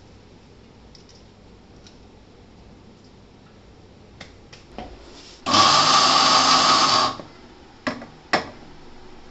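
Electric mixer grinder run in one short burst of about a second and a half, grinding roasted cumin seeds in its steel jar. The burst is kept short so the cumin stays coarse rather than turning to powder. Two sharp knocks follow.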